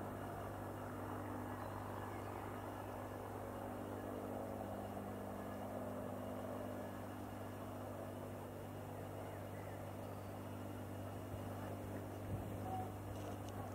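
Steady drone of a firefighting aircraft's engines heard from afar, a low hum with several steady tones, with a few faint knocks near the end.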